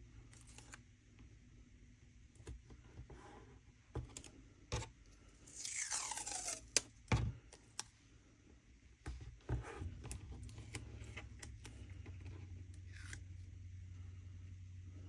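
Handling of craft materials at a worktable: scattered clicks and taps, and about six seconds in a strip of washi tape pulled off its roll and torn, a tearing sound that falls in pitch. A low steady hum comes up in the second half.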